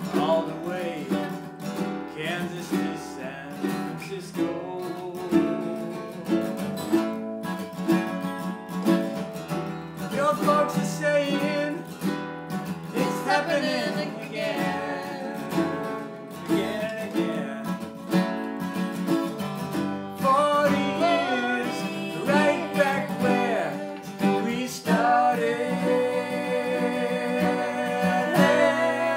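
Acoustic guitar and ukulele played together, with a man and a woman singing the song in harmony.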